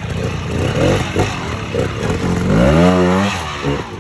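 Bultaco Sherpa trials motorcycle's two-stroke single-cylinder engine running with uneven throttle blips, then revving up and down in one longer burst about two and a half seconds in.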